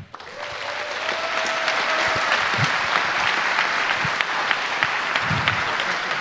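Audience applauding: a dense patter of clapping that builds up in the first half second and then carries on steadily. A faint held note sounds over it during the first two seconds.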